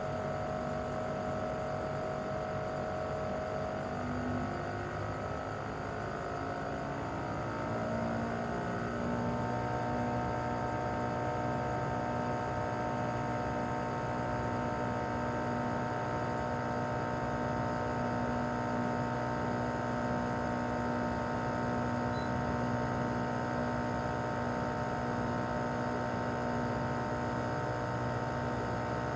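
Mitsubishi Heavy Industries SRC2221T air-conditioner outdoor unit running in cooling mode: a steady hum of its single-rotary inverter compressor and fan. Between about four and nine seconds in, the whine's pitch shifts as the inverter changes compressor speed, then it runs steady again, slightly louder.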